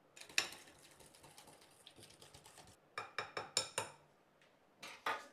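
Wire whisk stirring powdered sugar and milk into a thin glaze in a ceramic bowl: rapid light clicking and scraping against the bowl, with a louder run of clinks about three seconds in.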